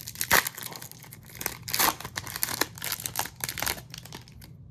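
Foil trading card pack being torn open and crinkled by hand, with a run of quick crackles and rips.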